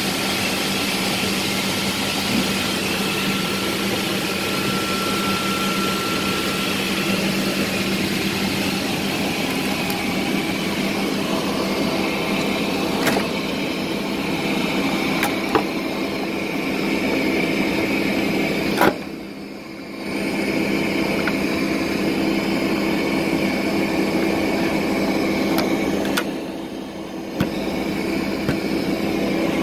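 Steady mechanical drone of a parked Boeing 737 with its engine and systems running, heard from inside the electronics and equipment bay, with a constant hum under it. A few sharp knocks come through, and twice the drone dips sharply for about a second.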